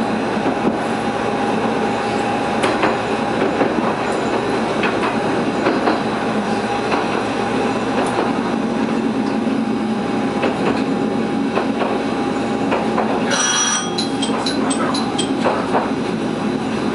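Heisei Chikuho Railway diesel railcar running along the line, a steady running noise with a constant tone and scattered clacks over the rail joints. About 13 seconds in comes a brief high-pitched screech of the wheels.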